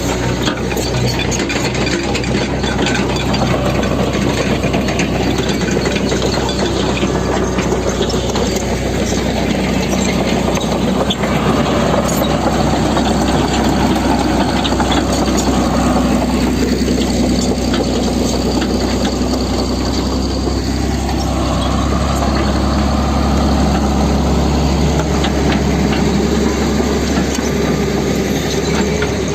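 Heavy diesel engine of road-construction machinery running steadily, a low drone with continuous mechanical clatter and rattling over it.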